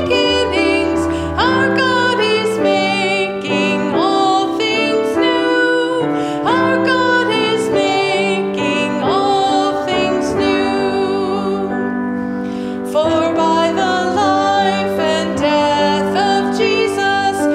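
A woman singing a slow song with vibrato over instrumental accompaniment, with a brief break between phrases about twelve seconds in.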